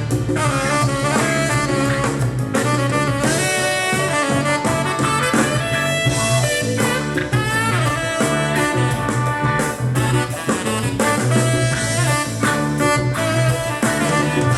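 Instrumental break of a pop song with brass and a steady bass line, played through a Telefunken RA 100 integrated amplifier as an audio test.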